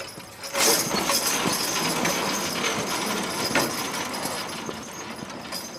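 A team of draft horses dragging a weighted sled loaded to 3,600 lb through the dirt: a dense scraping, clattering noise of sled and hitch starts suddenly about half a second in and runs on, with a sharp knock about three and a half seconds in.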